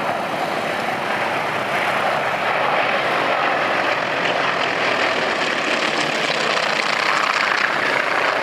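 North American T-28 Trojan trainers flying in formation, their radial piston engines and propellers making a steady drone that grows slightly louder toward the end.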